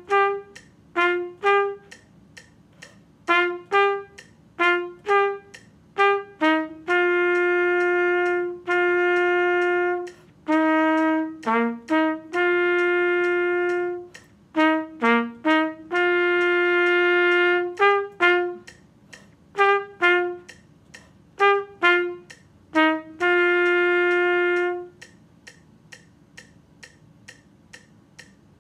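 Solo trumpet playing a band part: short detached notes, often in pairs, mixed with long held notes, over a steady metronome tick. The trumpet stops about 25 seconds in, leaving only the ticking during a rest.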